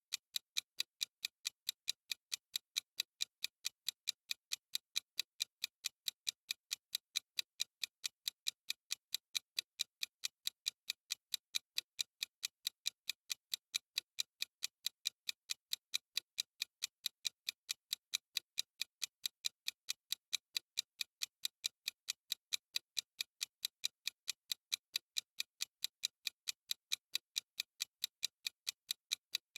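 Clock ticking as a timer sound effect: sharp, evenly spaced ticks at a steady rate of several a second, bright and high-pitched.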